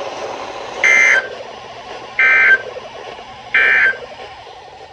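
Emergency Alert System end-of-message data tones: three short, buzzy digital bursts a little over a second apart over faint radio hiss. They signal the end of the broadcast alert.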